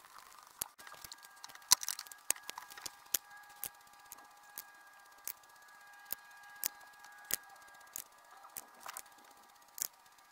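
Light, sharp clicks and taps, irregular at one or two a second, from a paintbrush and sketchbook being handled at a desk. A faint steady whine of several pitches runs underneath from about a second in.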